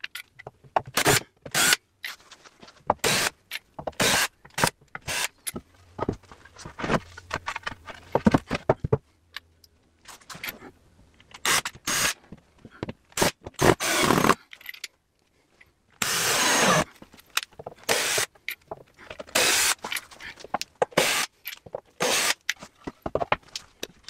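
Cordless drill driving square-drive screws into timber boards in short stop-start bursts, with one longer run about two-thirds through, and knocks and clatter of handling in between.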